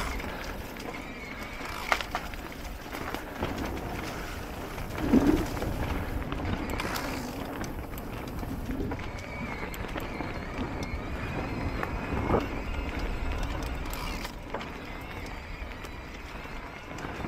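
Electric mountain bike riding down a rough dirt trail: steady tyre and frame rattle with wind rumble on the camera microphone, and a few sharp knocks over bumps, about 2, 5 and 12 seconds in.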